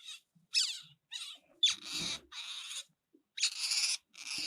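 Otter calling: a series of about six high-pitched squeaks and chirps, several of them sliding down in pitch.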